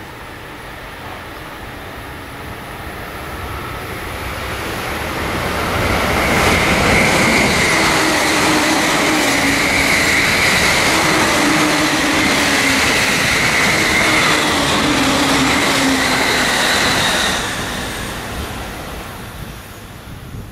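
JR East E531 series electric commuter train passing at speed, its wheels running on the rails with a high whine over the noise. The sound builds over the first few seconds, stays loud for about ten seconds as the cars go by, then drops away near the end.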